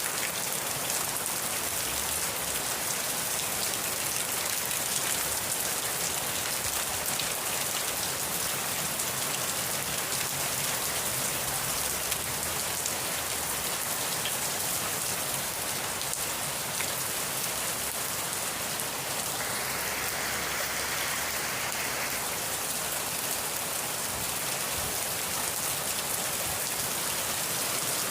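Steady rain falling, an even dense hiss of drops, with a brief slightly louder rush about twenty seconds in.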